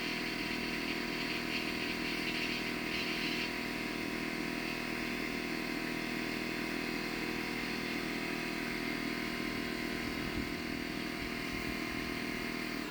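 A motor running steadily: a constant hum made of several steady tones, which cuts off abruptly at the end.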